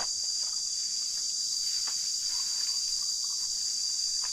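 Steady, high-pitched drone of an insect chorus, with a few faint ticks and rustles beneath it.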